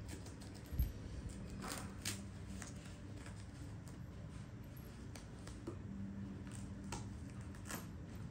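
Light rustling and a few soft clicks from handling in a small room, with one low thump about a second in, over a steady low hum.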